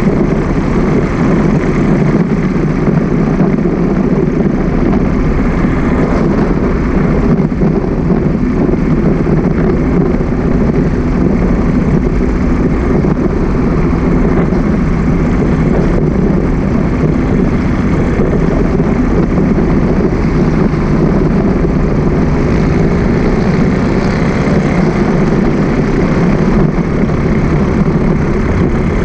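Steady, loud rush of wind and road noise on a handlebar-mounted camera while riding along a busy road, with vehicle engine noise underneath.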